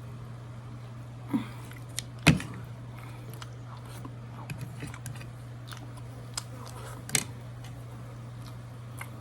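Crab being eaten: a few sharp cracks and clicks of shell being broken and handled, the loudest a little over two seconds in and another about seven seconds in, over a steady low hum.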